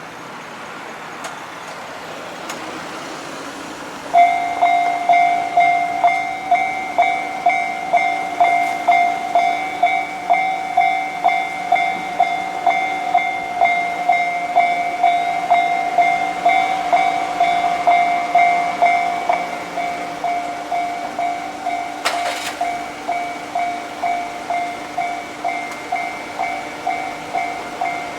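Japanese railroad crossing warning bell starting up about four seconds in, then ringing at about two strikes a second in a clanging, ringing tone. Before it starts, a rising rush of noise.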